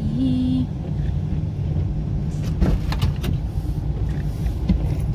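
Van's driver door being unlatched and opened: a few sharp clicks and knocks about two and a half to three seconds in, over a steady low rumble.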